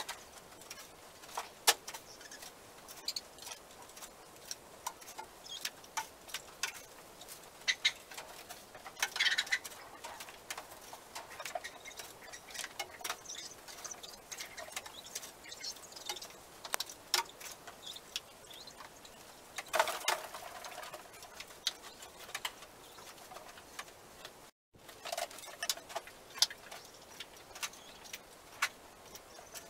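Long-handled pooper scooper scraping and raking through wood shavings on a coop floor, with irregular clicks, knocks and rustles as it picks up droppings and bedding. There are longer rustles about nine and twenty seconds in.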